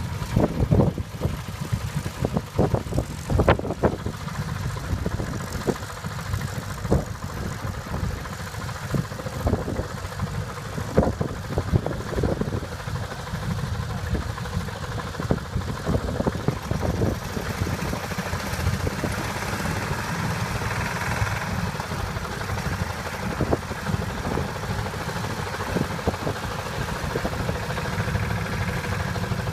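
Tractor engine running steadily at low revs, with irregular short thumps and knocks.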